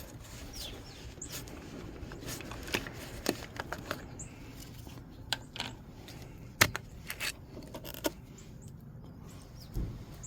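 Scattered clicks and light knocks of hands handling parts under a car's hood, with one sharper knock partway through.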